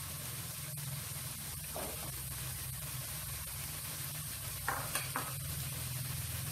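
Blended chili spice paste sizzling as it fries in oil in a non-stick wok, stirred with a wooden spatula. A few short knocks come about two-thirds of the way through.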